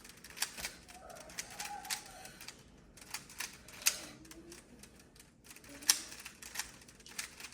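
A 3x3 Rubik's cube being turned quickly by hand, its plastic layers clacking in irregular runs of rapid clicks, with a few sharper clacks among them.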